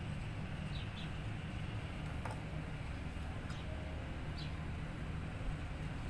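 Steady low background rumble with a few short, high, falling chirps, as from a small bird calling. A single sharp click comes a little over two seconds in.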